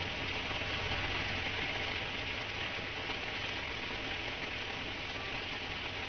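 Heavy monsoon rain pouring onto a wet street, a steady dense hiss, with a low rumble of street traffic underneath.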